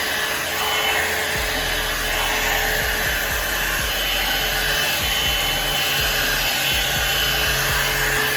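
Gem blow dryer running steadily through hair: a loud, even rush of air with a faint motor whine.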